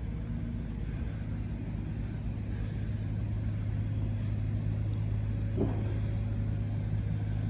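An engine running steadily, a constant low hum. A short faint pitched sound comes about five and a half seconds in.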